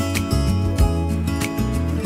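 Background music: strummed acoustic guitar over a steady beat.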